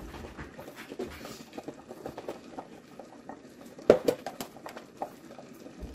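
Vegetable soup simmering in a pot, a steady crackle of small bubbles popping. A sharp click of something hard against the pot comes about four seconds in, with a few lighter taps after it.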